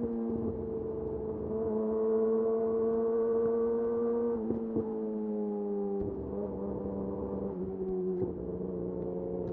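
Yamaha YZF-R6 inline-four engine running through a de-catted Akrapovic slip-on exhaust while riding at steady mid revs. The pitch climbs slightly, then eases down in small steps with throttle changes, with brief breaks about four and a half, six and eight seconds in.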